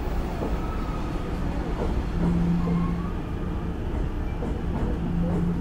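Hankyu 9000 series train standing still with its air conditioning on: a steady low rumble from the cooling and on-board equipment, with a deeper hum that swells twice for about a second. Faint voices of people can be heard in the background.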